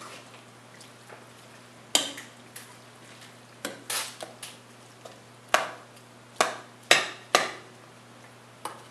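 Metal spoon stirring a stew in a metal pot, knocking and scraping against the pot's side in irregular clanks, most of them in the second half. A steady low hum runs underneath.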